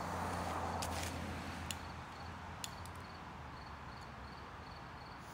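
Crickets chirping steadily in a quiet night, with a low hum, a soft rush of noise that swells and fades in the first couple of seconds, and a few faint clicks.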